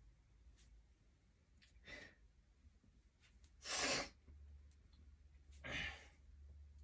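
A man breathing out hard three times, about two seconds apart, in time with punching exercise; the middle breath is the loudest.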